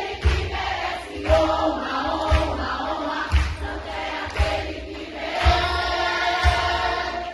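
Live gospel worship music: singing voices carry a melody over a band, with a low drum beat about once a second.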